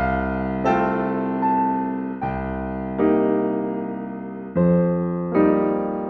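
Slow piano music: sustained chords struck every second or so, each ringing and fading before the next.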